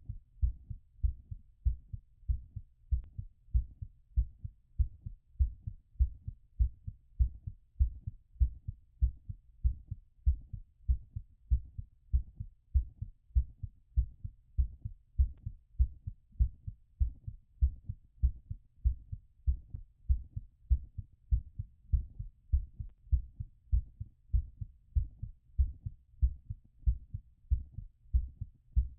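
Human heartbeat heard through a stethoscope during recovery after exercise: a steady, regular rhythm of low double thuds (lub-dub).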